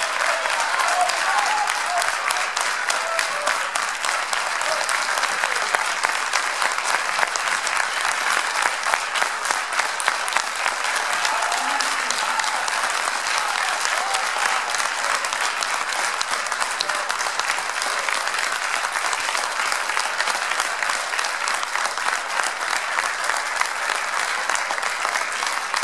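Concert audience applauding in a long, steady ovation.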